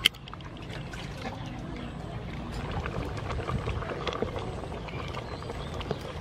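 A pot of chicken and palm fruit curry at the boil, stirred with a wooden spatula: bubbling and sloshing of the liquid with scattered small clicks. A single sharp click comes right at the start.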